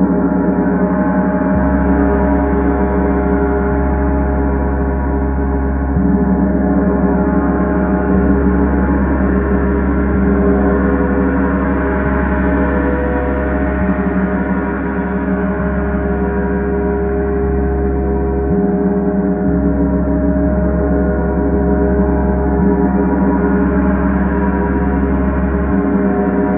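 Paiste symphonic gong being played continuously: a loud, sustained, dense wash of many overlapping steady overtones that swells and shimmers without a break.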